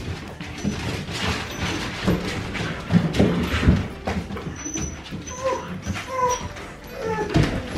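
Siberian husky puppies whimpering and yipping in play, with a few short high whines about five to six seconds in, over irregular scuffles and thumps of paws on the floor.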